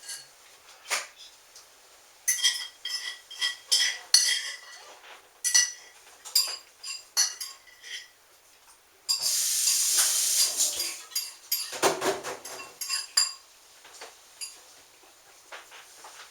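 Dishes and cutlery clinking and clattering in a run of sharp, ringing knocks, with a rushing noise lasting about two seconds near the middle.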